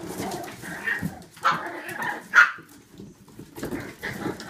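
Cavapoo and Cavalier King Charles Spaniel puppies yipping and barking a few times in play, the loudest bark about halfway through.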